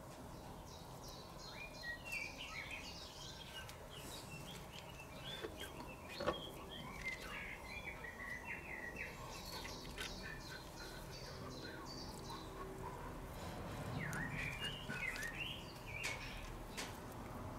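Songbirds singing in the background: three spells of quick, high chirping notes, with a brief sharp click about six seconds in.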